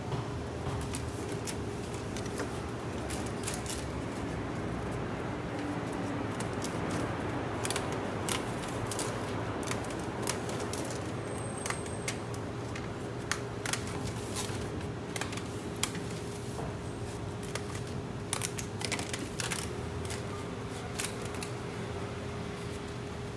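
Light, irregular clicks and taps of a small knife peeling and slicing fruit by hand, with pieces set against a steel tray, over a steady machinery hum.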